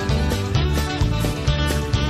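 Country-style background music with guitar and a steady beat.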